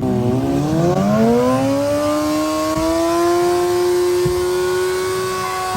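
Car engine revving up and then held at high revs, its pitch climbing over about two seconds and staying steady.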